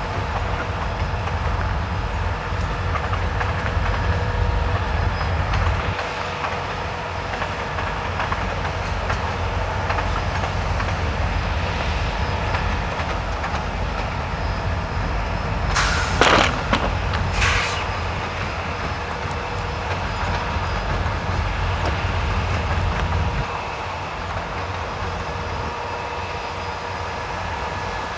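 Diesel locomotive engine running, a steady rumble with a steady hum over it. Two short sharp bursts of noise come a little past the middle.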